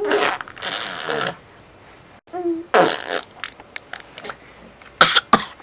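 A teething baby blowing raspberries, spluttery fart noises made with the lips. There is a long splutter at the start, a short voiced squeak followed by another splutter around the middle, and two quick splutters near the end.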